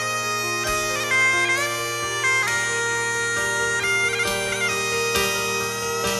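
Bagpipe music: a chanter playing a stepping melody, with quick grace-note flicks between notes, over a steady unbroken drone.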